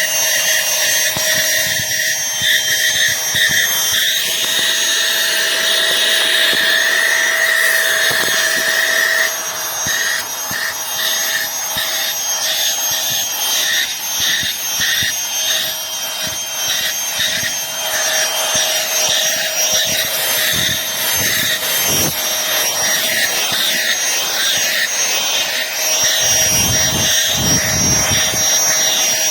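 Aspiron cordless handheld vacuum cleaner running, a steady high motor whine with scraping and rubbing as the nozzle works over a surface. The whine shifts a little in pitch about nine seconds in.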